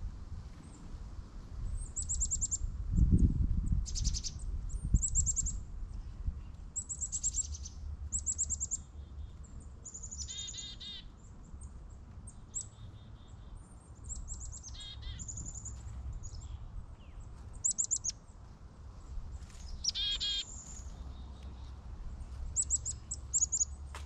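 Small woodland birds calling: many short, high chirps, with lower, harsher call series about ten, fifteen and twenty seconds in. A low rumble on the microphone around three seconds in is the loudest part.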